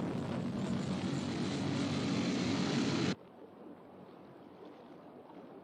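Jet engine sound effect for the Sky One interceptor aircraft: a loud, steady rushing noise that cuts off suddenly about three seconds in, leaving a faint low rumble.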